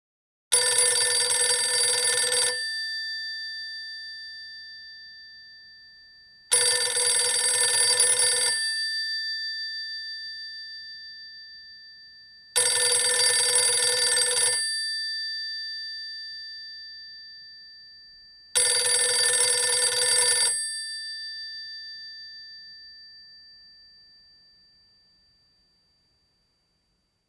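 Telephone bell ringing: four rings of about two seconds each, six seconds apart, each ring's bell tone fading out slowly after the clapper stops.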